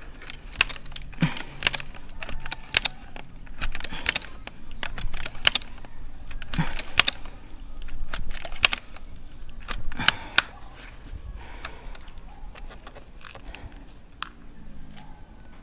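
Multi-pump pneumatic air rifle being pumped by hand to charge its air reservoir: a run of pump strokes, each with a sharp metallic clack, for about ten seconds, then a few quieter handling clicks.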